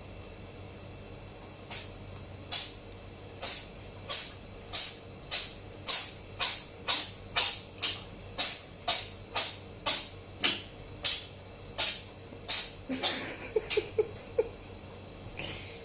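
A cat in a sneezing fit: about twenty short, sharp sneezes in quick succession, roughly two a second, then a few weaker, squeakier ones near the end.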